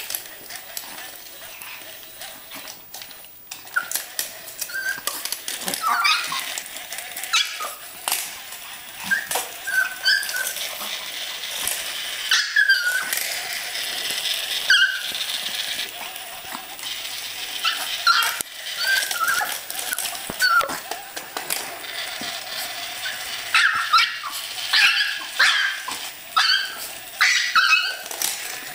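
Small Yorkshire terriers barking and yipping in many short, high-pitched bursts as they attack a toy spider, with scuffling and clicks between the calls.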